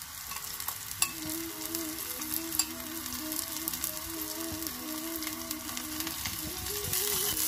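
Chopped onions, green chillies and freshly added spring onions sizzling in hot oil in an aluminium pot. A ladle stirs them near the end, with scattered clicks of the ladle against the pot. A faint tune plays underneath.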